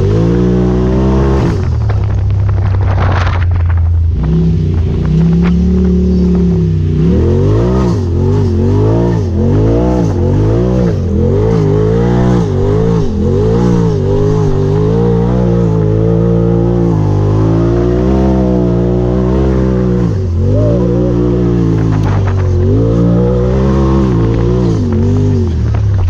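Polaris RZR turbo side-by-side's twin-cylinder engine driven hard through mud, heard from on board: fairly steady at first, then revving up and down over and over, about once a second.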